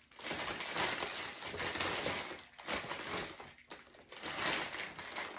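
Plastic shipping mailer bag crinkling and rustling as hands rummage inside it, in about three spells with short breaks between them.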